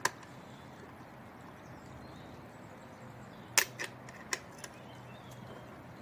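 A few sharp clicks and knocks of parts of a cordless circular saw being handled while its blade is fitted: one right at the start, then a louder click about three and a half seconds in, followed by two or three lighter ones.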